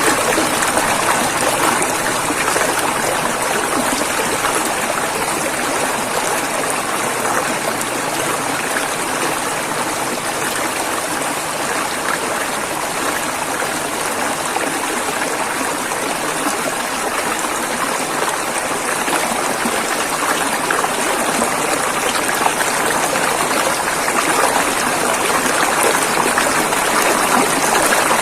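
River water flowing and rushing over rocks, a steady splashing babble.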